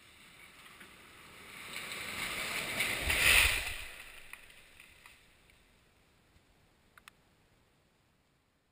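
A 695-foot structural steel LORAN-C tower mast toppling after its explosive cut. It makes a rising rush of noise as it falls, peaks in a heavy crash with a deep thud about three seconds in as it hits the ground, then fades away. Two small clicks follow near the end.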